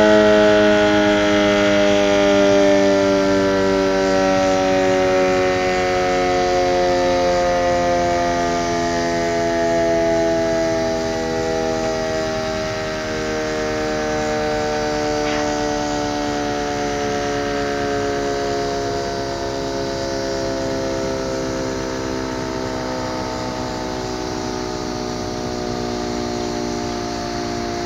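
Sentry 15V2T dual-tone outdoor warning siren winding down at the end of its test, its two-tone chord sliding slowly and steadily lower in pitch while gradually growing quieter.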